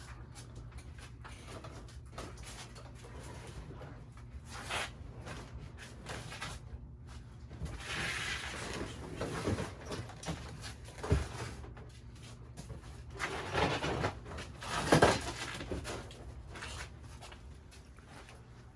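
Scattered knocks, scrapes and rustles of things being handled and moved about, over a steady low hum.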